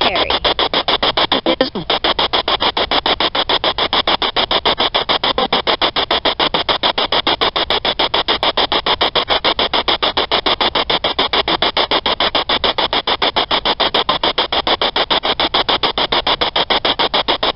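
Ghost-hunting spirit box, a radio sweeping rapidly through stations, giving out a choppy hiss of static that cuts on and off many times a second.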